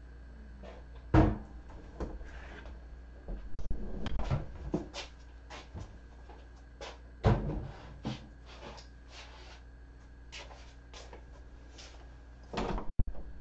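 Household knocks and clatter as someone moves about the room handling things. There are two sharp knocks, about a second in and about seven seconds in, a spell of rustling and clattering a few seconds in, small clicks throughout, and a sharp clack near the end.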